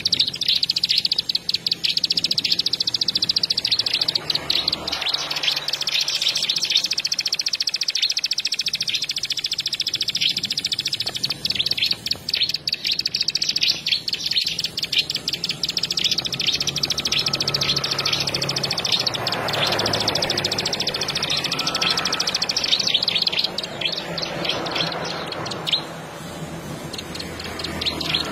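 Bar-winged prinia (ciblek) singing a fast, continuous high trill of rapid chirps, which thins to scattered, fainter chirps near the end.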